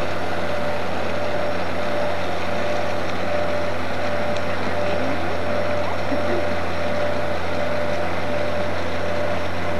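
Lake freighter's engines running as it moves slowly along the river: a steady low drone with a broad rushing noise over it, unchanging throughout.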